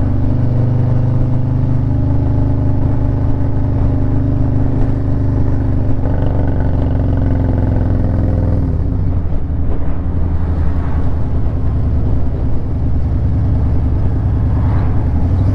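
2023 Harley-Davidson Road Glide ST's Milwaukee-Eight 117 V-twin running at a steady cruise. Its pitch drops about nine seconds in as the throttle eases off, then holds steady lower.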